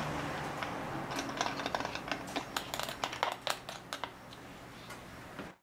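Irregular light clicks and taps as a plastic squeeze bottle is worked over the exposed oil-pump gears in a scooter engine case, oiling them before the cover goes on. The clicks come thickest in the middle and die away about four seconds in; the sound then cuts off suddenly.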